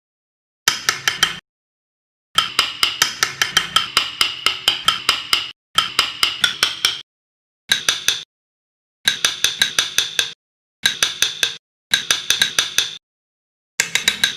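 Rapid, sharp taps of a mallet driving a carving chisel into wood, about seven or eight a second. They come in short runs that stop and start abruptly.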